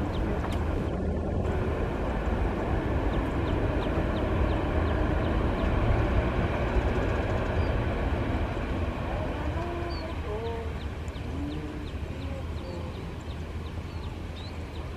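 Jet airliner engines running on the runway, heard from afar as a steady low rumble with a rushing hiss that swells slightly toward the middle and eases toward the end. A few short wavering calls come through faintly in the second half.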